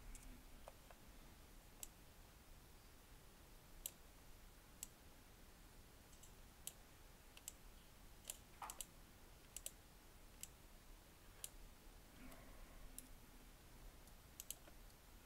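Near silence broken by faint, sharp clicks of a computer mouse and keyboard, about fifteen at uneven intervals.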